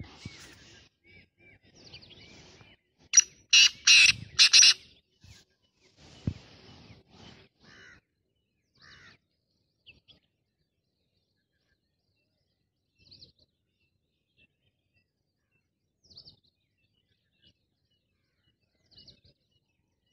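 Caged black francolin calling: a loud call of four notes in quick succession about three seconds in, with fainter calls around it and a few faint short chirps later on.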